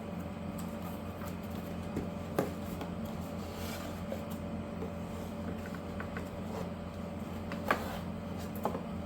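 Figure packaging being handled and opened: a few sharp clicks and taps of cardboard and plastic, about two and a half seconds in and twice near the end, over a steady low room hum.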